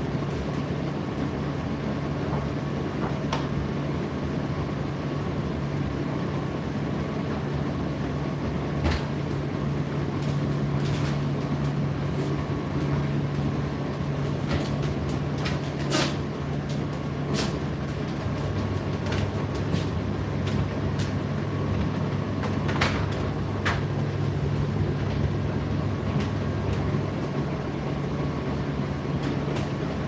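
Indesit IDC8T3 8 kg condenser tumble dryer running: a steady hum of the motor and drum, with a second, lower hum coming in for several seconds past the middle. Occasional short light knocks sound over it.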